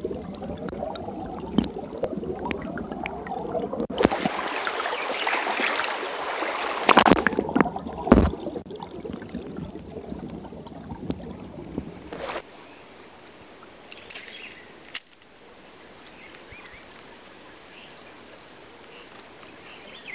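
Water sloshing and splashing, with a couple of loud knocks about seven and eight seconds in. The sound changes abruptly several times and turns quieter and steadier after about twelve seconds.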